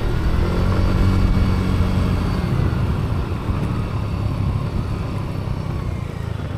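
Motorcycle engine running steadily, growing gradually quieter toward the end.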